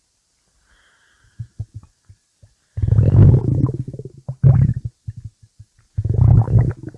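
Human stomach growling: a quiet start, then a scatter of small gurgling pops, then loud low growls about three seconds in, a shorter one a little later, and another near the end.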